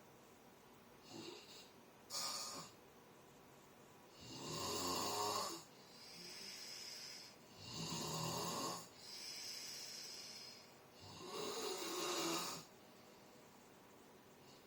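Snoring: two short breaths in the first couple of seconds, then three long, loud snoring breaths about three and a half seconds apart, each followed by a quieter breath out. The snoring stops about two seconds before the end.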